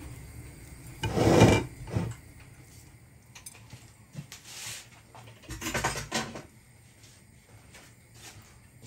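Kitchen bowls and utensils being handled, knocking and scraping in a few short bursts, the loudest about a second in and another cluster around six seconds in.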